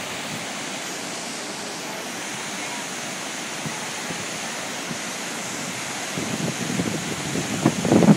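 Steady, even rush of a whitewater rapid on a river running high, with white water pouring around boulders. From about six seconds in, irregular low gusts of wind buffet the microphone over the water noise.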